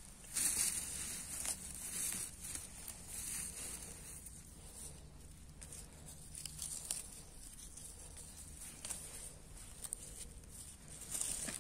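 Irregular rustling and crackling of leafy wild greens being picked and handled by hand, busier in the first few seconds and again near the end.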